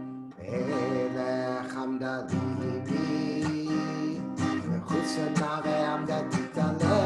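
Acoustic guitar strummed in a steady rhythm: a held chord rings softly, then the strumming comes in firmly about half a second in.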